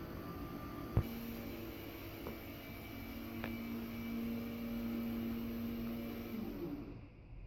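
A steady low hum that comes in right after a sharp click about a second in, holds, and dies away shortly before the end.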